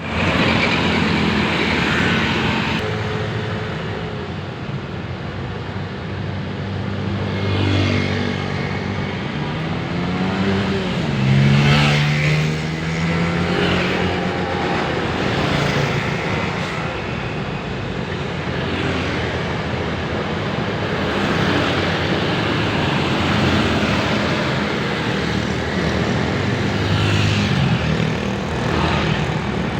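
Busy city street traffic: a steady stream of vehicles passing one after another. About eleven seconds in, one vehicle's engine rises in pitch as it speeds up and goes by, the loudest moment.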